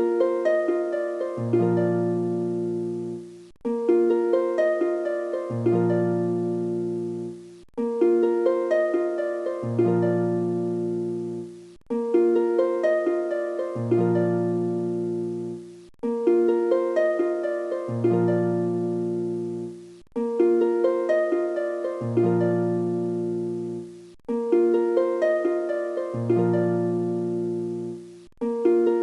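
Background music: a short plucked harp-like phrase looping about every two seconds, each loop cut off abruptly before it restarts.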